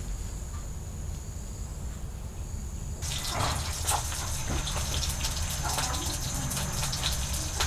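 Water splashing and pouring, starting suddenly about three seconds in, over a steady high drone of insects.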